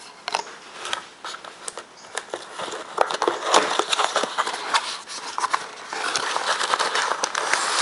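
Cardboard mailing box being handled and torn open by hand: scattered crackles, scrapes and clicks of cardboard and tape, turning to more continuous tearing and rustling about six seconds in.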